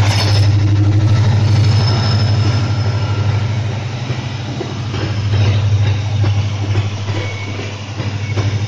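Freight train wagons rolling past close by: a steady low rumble with repeated clicks of the wheels over the rails, stronger in the second half.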